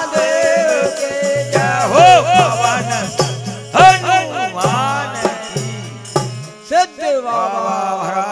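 Bundeli tamura bhajan folk music: a melody that glides up and down over low held notes, with struck percussion.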